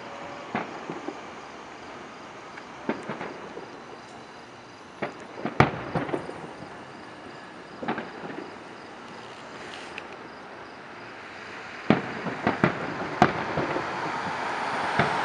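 Distant fireworks bursting: irregular sharp bangs and pops with echoes, coming in clusters, the loudest about five and a half seconds in and another quick run about twelve to thirteen seconds in. Steady street traffic noise lies underneath and swells near the end.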